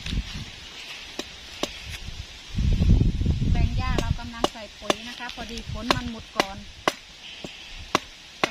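A wooden club knocking on the top of a sprinkler stake to drive it into the ground. There are a few single knocks at first, then a steady run of sharp knocks about two a second from around the middle, each with a short ring.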